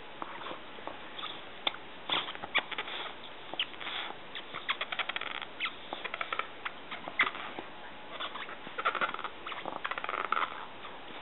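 Cardigan Welsh Corgi puppy nosing right up at the microphone: a quick, irregular run of small mouth and nose clicks and snuffles, densest in the last few seconds.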